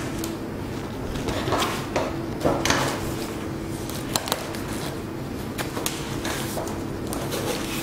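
Fabric of a Godox softbox rustling and scraping, with light knocks and clicks as the diffuser is fitted and pressed into place around the rim by hand. The sharpest clicks come about two and a half seconds and four seconds in, over a steady low hum.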